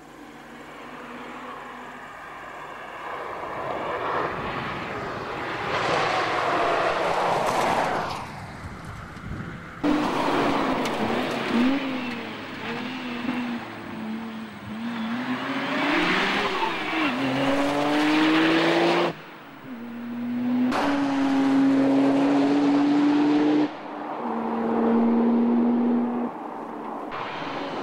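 Nissan Skyline R32 GT-R's twin-turbo straight-six running hard on a tarmac rally stage. The engine pitch climbs and drops through gear changes over several separate passes, each of which breaks off suddenly.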